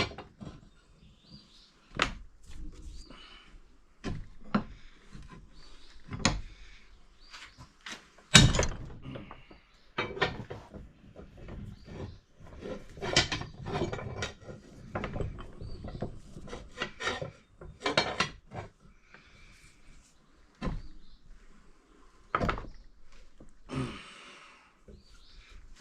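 Irregular metal knocks and clanks, with scraping between them, as a badly bent lawn mower blade is forced back straight. The loudest knock comes about eight seconds in.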